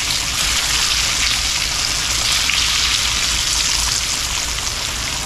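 Flour-coated chicken pieces shallow-frying in shortening in a cast iron skillet: a steady, even sizzle.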